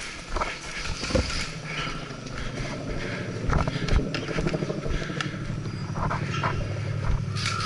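Scattered mechanical clicks and knocks of airsoft gear and guns during play. A steady low hum comes in about a second and a half in.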